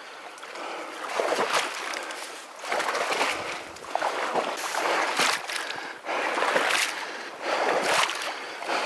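Footsteps wading through a marsh, with water sloshing and wet grass swishing at each stride, about one step a second.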